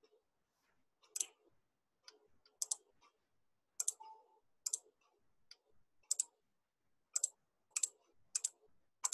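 Computer mouse buttons clicking, a dozen or so sharp, faint clicks at uneven spacing, roughly one every half second to a second, some in close pairs.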